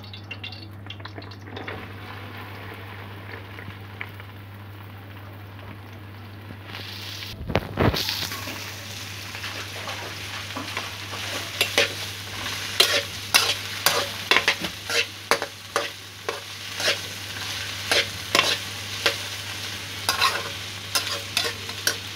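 Chopped okra going into hot oil in a kadai, with a loud burst about a third of the way in. Then frying with a sizzle while a spatula stirs it, scraping and knocking against the pan many times.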